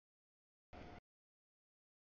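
Dead silence broken by one short burst of noise from the passing CSX intermodal freight train, heavy in the low end and lasting about a third of a second, starting and stopping abruptly a little under a second in as the audio cuts in and out.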